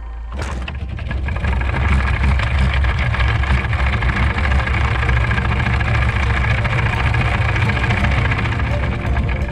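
Sailboat's anchor chain paying out over the bow roller as the anchor is dropped: a steady metallic rattle of links that starts suddenly just after the start, with a low rumble underneath.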